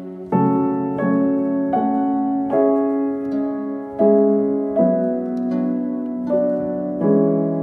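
Slow background music on piano, a note or chord struck about every three quarters of a second and left to ring.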